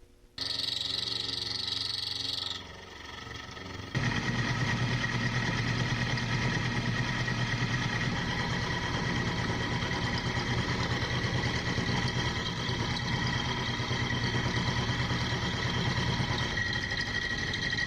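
Benchtop machine tool running steadily with a constant motor whine, starting about four seconds in. Before that there is a brief, higher hissing sound.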